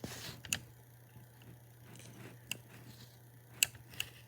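Four sharp little clicks of Lego pieces being handled and set down, with a faint low hum behind.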